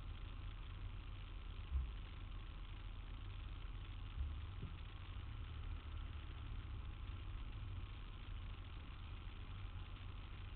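Street ambience dominated by a steady low rumble of idling traffic, with two soft thumps about two and four seconds in.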